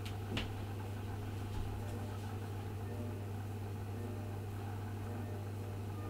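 Steady low hum of running computer equipment, with a faint click or two in the first couple of seconds.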